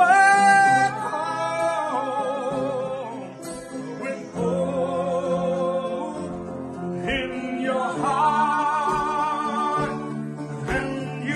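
A slow song played live: a man and a woman singing held notes with vibrato, with acoustic guitar and piano accompaniment.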